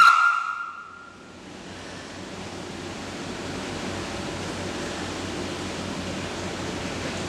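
A held tone with overtones dies away in the first second. Then a steady wash of noise, like a rush of surf or static, swells in over the next few seconds and holds steady, a sound-design passage of a dance accompaniment track.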